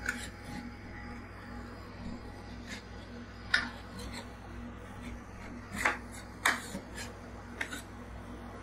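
Metal scraper scraping across a steel cold-plate pan as it lifts and rolls thin crisp wafer sheets: soft rubbing broken by several short, sharp scrapes, the loudest about three and a half and six seconds in, over a steady low hum.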